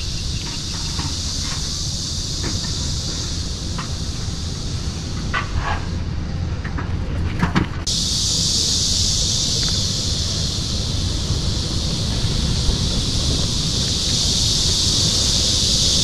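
Cicadas buzzing in a steady high hiss that abruptly grows louder about eight seconds in, over a low rumble.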